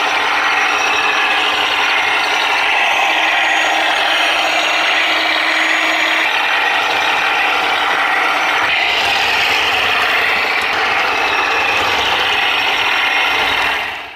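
Heng Long Tiger I 1:16 RC tank driving: its electric drive with metal gearboxes and its tracks make a steady whirring clatter. The sound fades out near the end.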